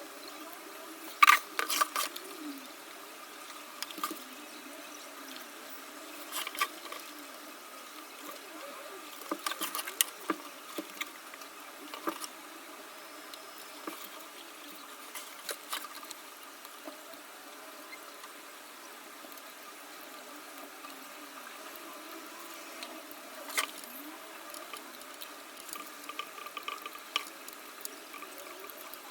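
Scattered light clicks, taps and handling noises from hand work on a silicone puppet patch, over a steady background hiss, with a few louder knocks about a second in, around ten seconds in and near twenty-four seconds.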